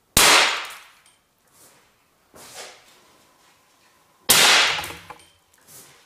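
Seatbelt pretensioner's explosive charge firing: two sharp bangs about four seconds apart, each dying away over about half a second, with a quieter knock between them.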